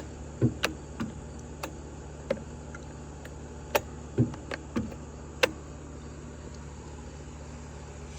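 Scattered clicks and knocks, about ten in the first five and a half seconds, as the chainsaw and its plastic parts are handled, over a steady low hum.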